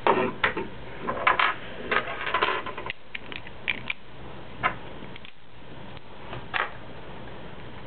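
Beyblade parts, a metal fusion wheel and plastic pieces, clicking and clinking against each other and on a wooden tabletop as tops are put back together. A quick cluster of clicks and scrapes comes first, then a few single clicks spaced a second or so apart.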